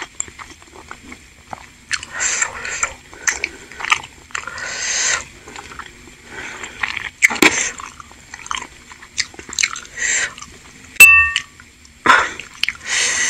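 Close-up eating sounds: wet chewing and mouth noises of chewy tapioca meatballs (bakso aci) in broth, in short irregular bursts. About 11 s in, a utensil strikes the ceramic bowl with a sharp clink that rings briefly.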